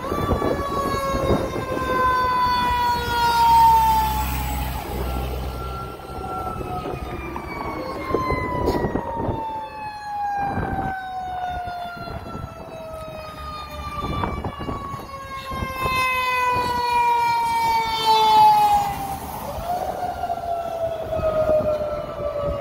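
Fire engine siren wailing: a short rise in pitch followed by a long, slow falling wail, about three times, over the truck's engine.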